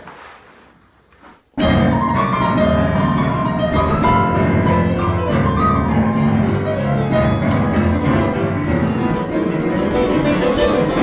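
Piano music, busy chords and runs, starting abruptly about a second and a half in after a quiet moment.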